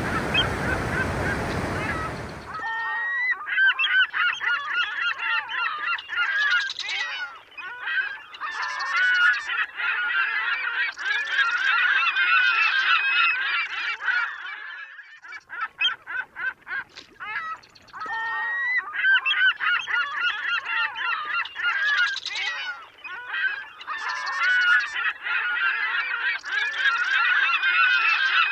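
A large flock of birds calling all at once, many overlapping calls, with a patchy lull in the middle. It starts a couple of seconds in, after a stretch of steady noise.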